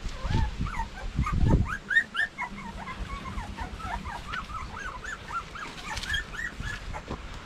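Puppies about 15 days old whimpering: many short, high squeaky cries, several a second, each rising and falling in pitch. A few low thuds in the first two seconds.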